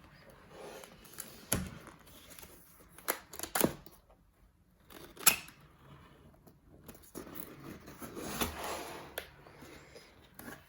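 Keyboard box being unboxed: a few sharp taps and knocks of cardboard and contents being handled, then a couple of seconds of rustling and sliding about two-thirds of the way in.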